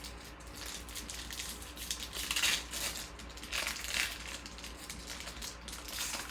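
Trading cards and their plastic or foil wrapping being handled, a crinkly rustling in uneven bursts, loudest around the middle.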